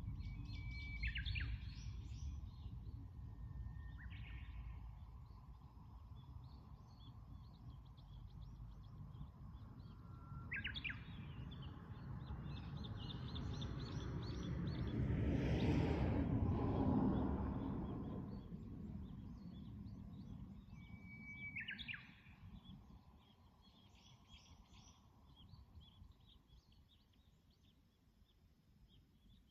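Wild birds singing: separate phrases several seconds apart, each a held whistle followed by a quick flourish, over a steady low rumble. A louder rushing noise swells and fades near the middle.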